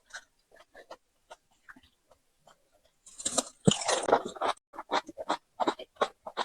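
Close-miked eating of a pani puri: faint mouth clicks, then about halfway through a loud crunch as the crisp puri shell breaks in the mouth, followed by steady wet chewing.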